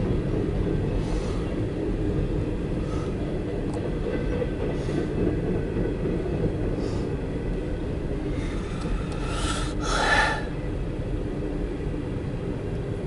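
Empty CSX coal train's cars rolling past a grade crossing, heard from inside a car: a steady low rumble of wheels on rail with a few faint clicks, and one brief louder, brighter burst about ten seconds in.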